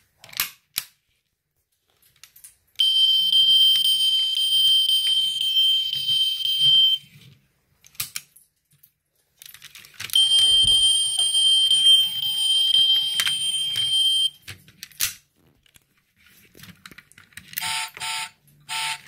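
Die-cast toy model cars' built-in electronic sound effects playing through a tiny speaker: a buzzy, steady electronic tone in two runs of about four seconds each, then a few short bursts near the end. Sharp plastic clicks from the cars' doors and parts come between them.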